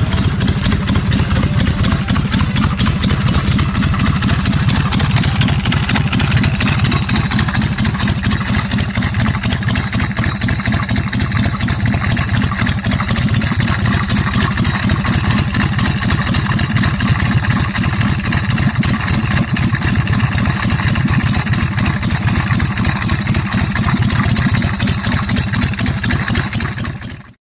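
Chopper motorcycle's Ultima Shovelhead V-twin engine running steadily with a fast regular pulse, then fading out near the end.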